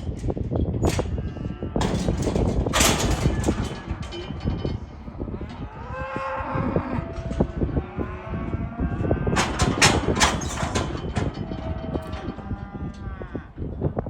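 Cattle bawling, with several drawn-out moos in the middle and again near the end, over constant knocking and clattering.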